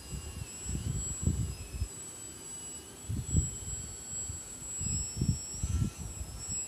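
Small electric RC aerobatic plane's motor and propeller whining overhead, the pitch of the whine wandering up and down as it manoeuvres, with irregular low gusts of wind on the microphone.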